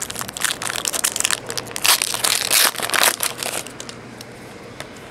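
Silver foil wrapper of a Bowman Chrome baseball card pack crinkling and crackling as it is opened and crumpled by hand, dying down about four seconds in.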